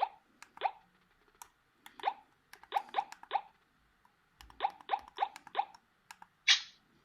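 Wiko Riff 3 Plus ringtone playing through the phone's small speaker: a string of short water-drop blips, each sliding sharply down in pitch, played in uneven clusters. Near the end a brighter, harsher tone sounds once.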